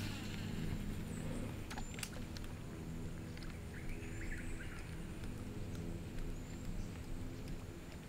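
A walk-the-dog topwater lure worked across calm water: a few sharp ticks and light splashes about two seconds in, over a steady low hum and faint high chirps.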